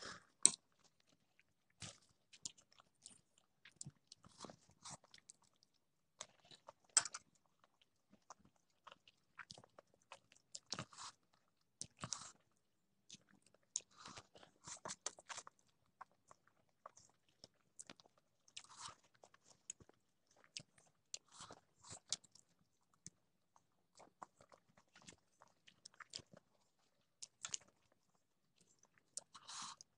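Faint close-up eating sounds: a person chewing spicy instant noodles and fried egg, a string of short wet clicks and smacks with a few denser bursts, and no words.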